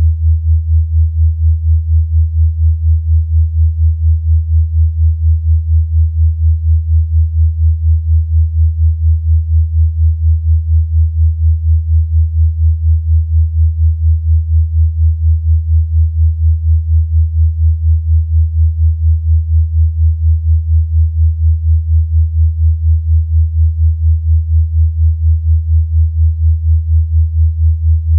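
Low, steady electronically generated sine tone that swells and fades evenly a few times a second: a 'healing frequency' tone track played for relaxation.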